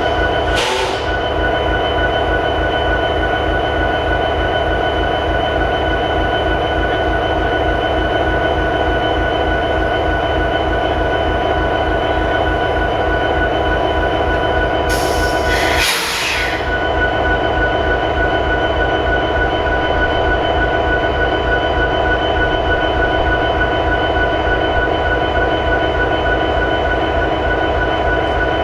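EMD 16-710 V16 two-stroke diesel prime mover of an SD70ACe locomotive idling: a steady, fast low pulsing with a steady whine over it. A short hiss comes just after the start and another about fifteen seconds in.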